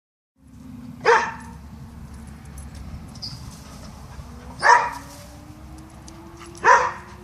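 Springer spaniel barking: three short single barks a few seconds apart, over a steady low hum.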